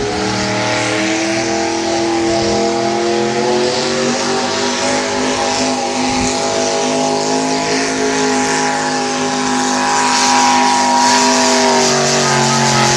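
Modified pulling tractor's engine running hard under heavy load as it drags a weight-transfer sled, a loud, steady engine note that grows louder about ten seconds in.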